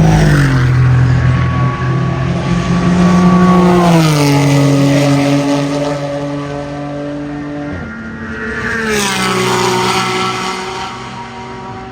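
Race car engines at speed trackside, a loud high engine note that drops sharply in pitch three times, about four seconds apart, as cars pass by.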